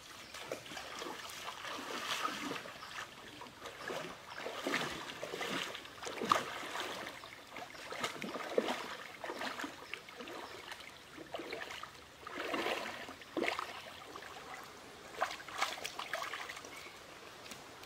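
A person wading through a shallow muddy stream: irregular sloshing and splashing of water with each stride, with a few sharper splashes along the way.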